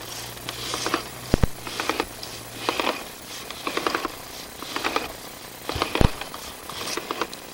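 Sewer inspection camera's push cable being fed by hand into a drain line: rhythmic rattling and scraping about once a second, with a couple of sharp knocks.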